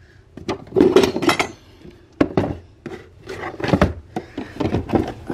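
Cardboard shoe boxes being handled and opened: a string of knocks, taps and rubbing as lids are lifted and boxes shifted, with a sharp knock about two seconds in.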